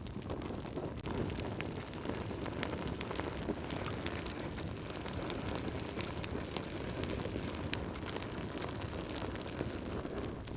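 Wood fire in a fireplace crackling, with many small sharp pops over a steady low rumble.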